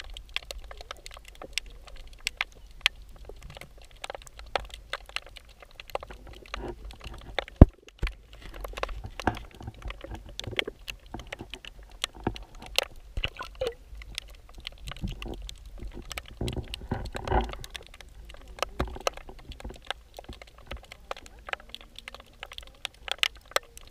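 Underwater sound picked up by a submerged GoPro: a steady low rumble with a constant scatter of irregular sharp clicks and knocks, and one loud knock about eight seconds in.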